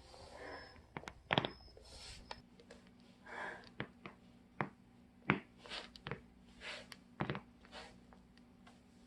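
Spine cracking during a roll-back back-crack adjustment: several sharp cracks and pops from the spinal joints, the loudest about a second and a half in and again about five seconds in, with rustling between them.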